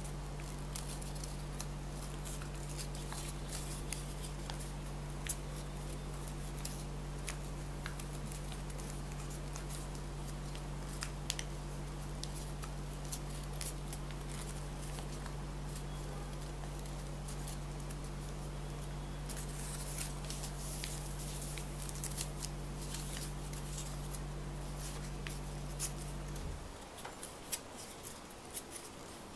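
Paper being handled and creased: many small crackles and clicks, busiest about two-thirds of the way through. Under it runs a steady low hum that cuts off suddenly near the end.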